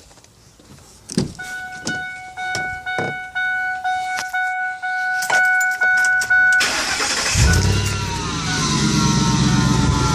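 A steady electronic warning chime from a 2008 Ford F-150 sounds for several seconds. About six and a half seconds in, the truck's 4.6 V8 cranks and starts, then runs at a fast idle with a high whine falling in pitch as the idle settles. The owner suspects the whine comes from a failing idler pulley.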